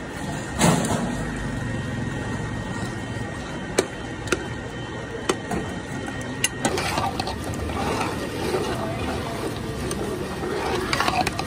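A steel ladle stirring a watery lentil-and-gourd curry in a large aluminium pot, clinking sharply against the pot several times, over steady background noise.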